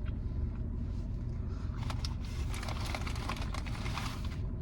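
Steady low rumble of a car cabin, with small crackly clicks and rustling from about two seconds in until just before the end.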